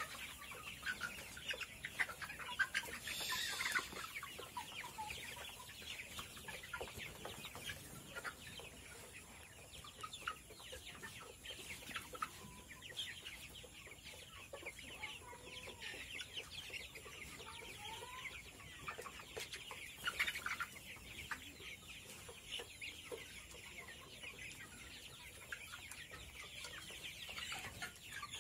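A flock of 60-day-old Sonali chickens calling, many short high-pitched calls overlapping one another.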